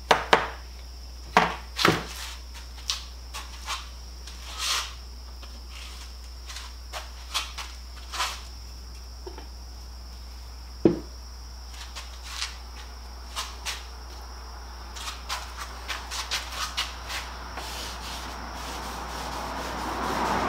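Scattered light clicks and knocks of gloved hands handling a glass jar and small tools on a wooden toolbox lid, over a steady high whine. A rushing noise swells near the end.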